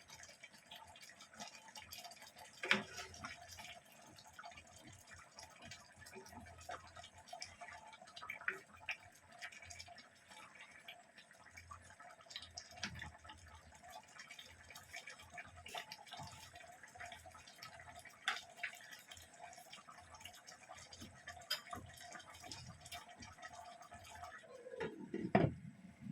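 Faint bubbling of a dish simmering in a pot, with small pops scattered through it. A brief, louder sound that falls in pitch comes near the end.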